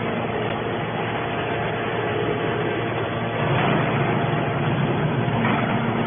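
Hydraulic scrap-metal baler running, a steady mechanical hum with no distinct strokes or impacts.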